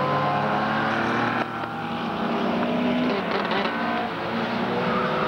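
Engines of several small saloon racing cars running hard on the track, their overlapping engine notes rising and falling as the cars race past. The sound changes abruptly about one and a half seconds in.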